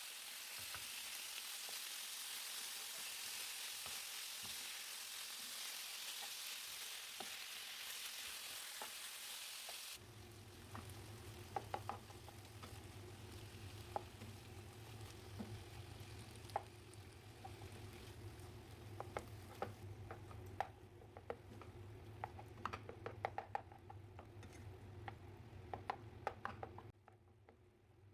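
Food frying in a pan with a steady sizzle. About ten seconds in, the sizzle cuts to a quieter low hum with scattered clicks, as of a utensil knocking against the pan while stirring.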